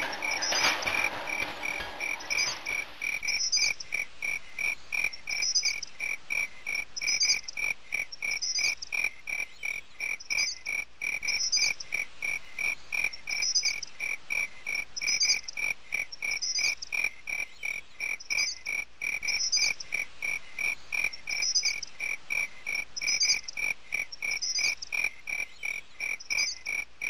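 Night chorus of crickets and frogs: rapid, even chirping with a higher call repeating about every second and a half. It cuts off suddenly at the end.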